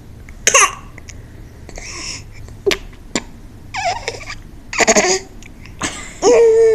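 Baby making short coos and breathy grunts, several separate bursts about a second apart, ending in a longer high-pitched coo that falls in pitch.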